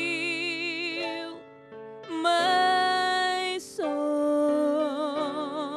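A female vocalist singing a slow gospel worship song over a soft instrumental accompaniment, drawing out long notes with vibrato, with a short breath break about a second and a half in.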